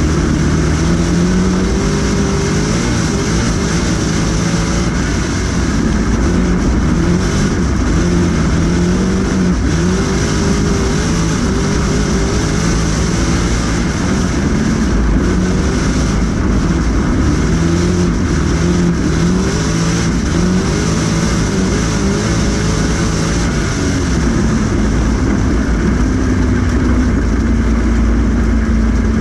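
Street stock race car's engine heard from inside the cockpit at racing speed, its pitch rising and falling again and again as the throttle is opened and closed. Near the end the pitch levels off into a steady drone.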